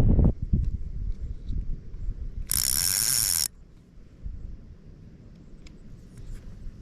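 Low handling rumble, then about 2.5 seconds in a spinning fishing reel gives a high-pitched ratcheting buzz for about a second before stopping abruptly.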